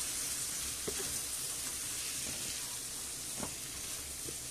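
Chicken pieces sizzling in a hot deep pan with tomato sauce and paprika, a steady hiss, with a few light knocks of the utensil against the pan as they are stirred.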